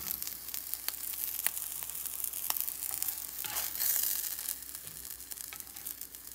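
Scrambled eggs still sizzling faintly in a hot nonstick frying pan with the heat just turned off, while a plastic spatula scrapes and taps against the pan, lifting the eggs out. The sizzle and scraping swell briefly a little past halfway.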